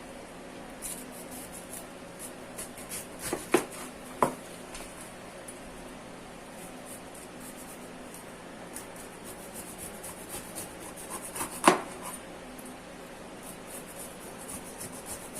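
Saba bananas being peeled by hand: soft rubbing and rustling of the skins, with three sharp knocks, two a few seconds in and one about three-quarters of the way through.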